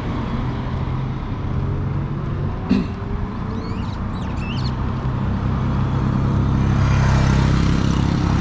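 Road traffic: a motor vehicle's engine running steadily, with a brief knock about three seconds in. Traffic noise swells from about six seconds in as a vehicle comes closer.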